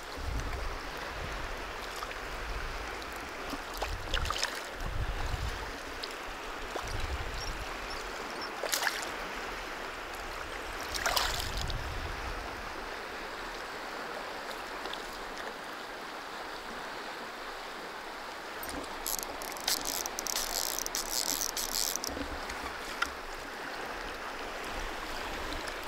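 Steady rush of flowing river water, with a few sharp clicks and a short high-pitched rattle about three-quarters of the way through.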